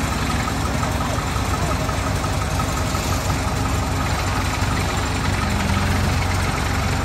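Sumitomo hydraulic excavator's diesel engine running steadily while its arm digs into soil.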